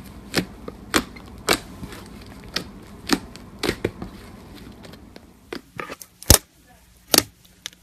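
Slime being squeezed and poked, making sharp, irregular pops and clicks about one or two a second. The background hiss drops out about five seconds in, and a few louder pops follow.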